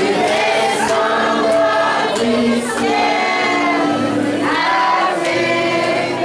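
Several voices singing a French children's nursery rhyme (comptine) together in chorus.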